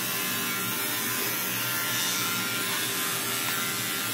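Steady whir of a small electric motor with a hiss, holding an even level throughout.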